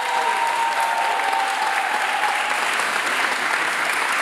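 Audience applauding steadily, a dense even clapping throughout, with a faint held high note fading out about two seconds in.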